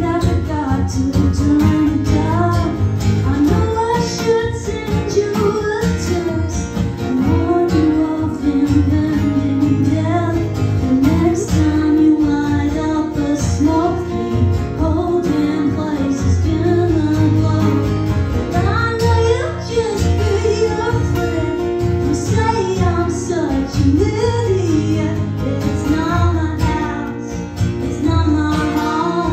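A woman singing a song, accompanied by two acoustic guitars.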